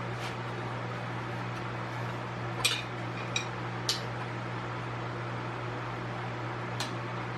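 Shop fan running with a steady hum and hiss, broken by a few sharp metal clicks and clinks, three of them close together about two and a half to four seconds in and one near the end, as tire levers work a tire bead onto a motorcycle rim.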